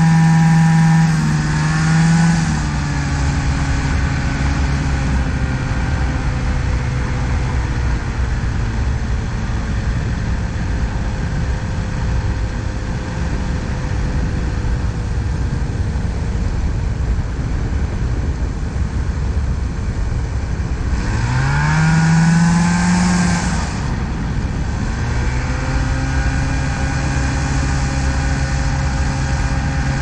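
Ultralight trike's 40-horsepower Japanese engine throttled back for the landing approach, running low under a steady rush of wind. About two-thirds of the way through it is briefly given throttle, its pitch rising then falling, before it settles to a steady lower drone on the runway.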